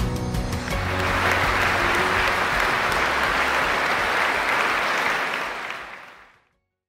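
Background music ends about a second in and gives way to a large audience applauding steadily, which fades out near the end.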